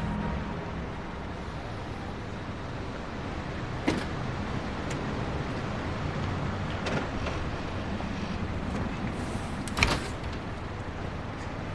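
Steady low rumble of a motor vehicle running, with a sharp knock about four seconds in and a louder clatter near the end.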